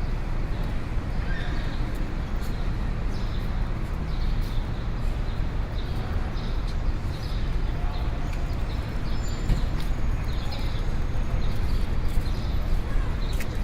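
Busy city street ambience: a steady low rumble of traffic and crowd, with a regular clicking of steps roughly twice a second.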